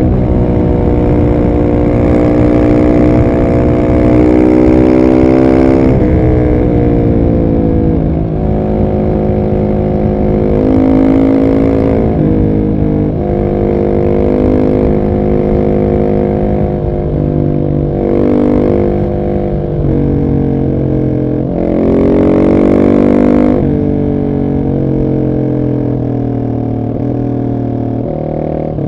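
Husqvarna 701 SM's big single-cylinder engine through an Arrow exhaust with the catalyst removed, pulling hard under load. The revs climb and drop several times, with the sharpest climb about two-thirds of the way through.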